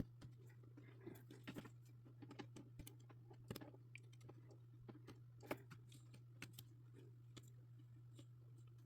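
Faint, scattered small clicks and ticks over a low steady hum: jumper wires being pulled from and pushed into a solderless breadboard.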